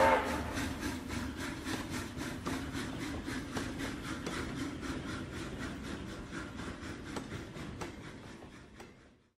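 Steam-train sound effect: an even, fast mechanical chuffing and clatter over a low rumble, fading steadily and cutting to silence near the end.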